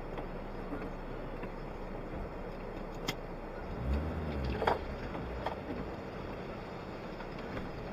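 Suzuki Jimny engine idling steadily, heard from inside the cabin, with a short rise and fall in pitch about four seconds in and a few light clicks.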